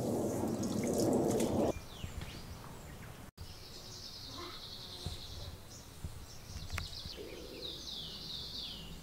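Birds singing in woodland: a high, fast trill a few seconds in, and near the end a quick run of falling whistled notes. Before that, a rushing noise cuts off suddenly under two seconds in.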